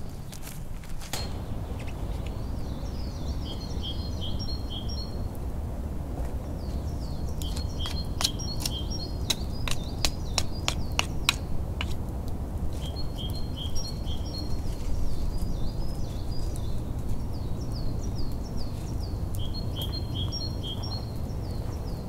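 A songbird sings short, repeated twittering phrases in several bouts over a steady low background rumble. About eight seconds in, a quick run of sharp clicks or knocks lasts about three seconds.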